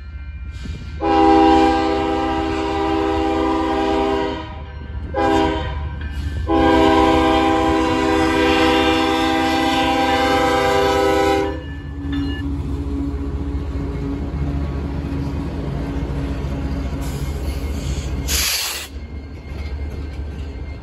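Diesel locomotive air horn sounding the end of a grade-crossing signal: a long blast, a short one, then a long blast held for about five seconds as the lead GE Evolution-series locomotive reaches the crossing. After that, the lead GE and EMD SD70ACe locomotives pass close by with a steady diesel engine rumble and wheel noise. A brief hiss comes near the end.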